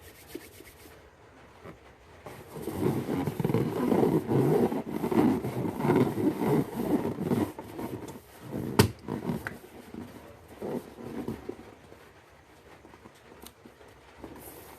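A rubber balloon making a low, rough, fluttering noise for about six seconds, then weaker bursts, with one sharp snap near nine seconds.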